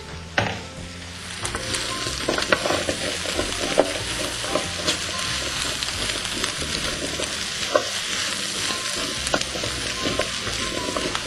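Diced butternut squash frying in bacon fat with onion, sizzling steadily, while a utensil stirs it and knocks and scrapes against the pan now and then.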